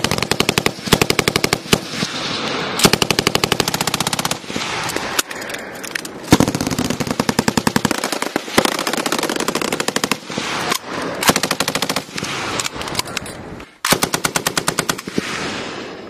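Several belt-fed M240 machine guns firing live in repeated bursts of automatic fire, about ten rounds a second, each burst lasting a second or so, with the bursts from neighbouring guns overlapping.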